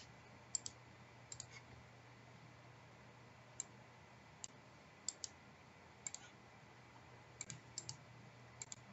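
Faint, scattered clicks of computer keys being pressed, about fifteen short taps, some single and some in quick pairs, over near silence with a faint low hum.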